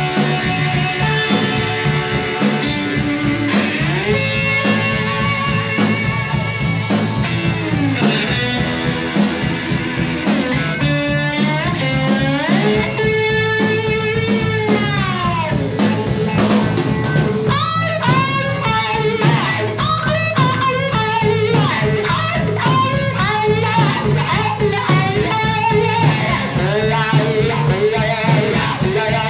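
Live blues band playing: electric slide guitar leads with gliding, bending notes over electric bass and a steady drum-kit beat.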